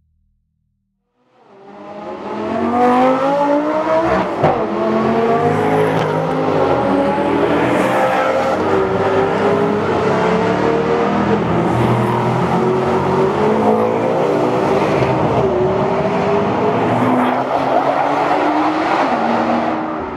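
Several sports car engines revving and accelerating together, their pitch climbing and dropping again and again. The sound comes in suddenly about a second in, after near silence.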